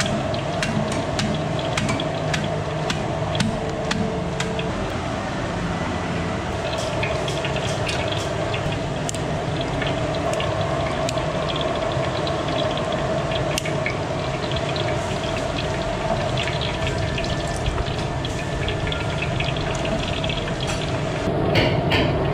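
Cooking oil poured into a large aluminium pot and heating, then sizzling with scattered sharp crackles as whole spices and cumin seeds are dropped in, over a steady rushing noise.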